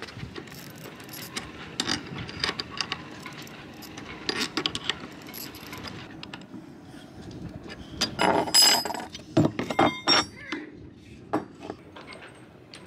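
Spanners and grips clicking and clinking against a stainless-steel cone-type rigging terminal as it is worked loose from the backstay wire. About eight seconds in there is a louder run of metal knocks, one with a short ringing clang.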